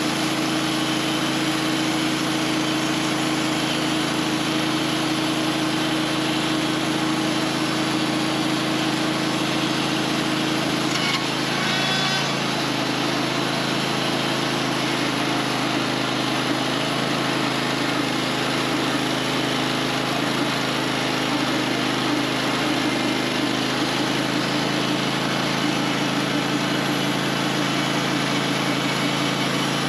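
Portable sawmill running steadily under its engine while it saws a chestnut log into slabs. About eleven seconds in the sound briefly changes, with a short high ringing, and then settles to a slightly different steady pitch.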